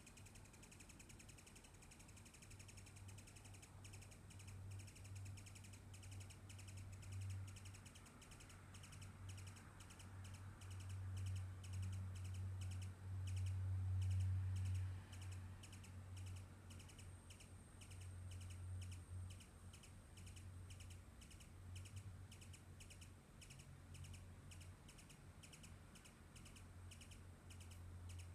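A long, even series of short high chips, about three a second, which the uploader takes for a perched hummingbird softly singing. A louder low hum runs underneath, swelling for a few seconds in the middle.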